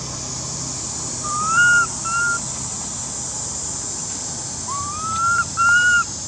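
Infant long-tailed macaque crying: four short, high cries that each rise and then hold, in two pairs, the first pair about a second in and the second near the end.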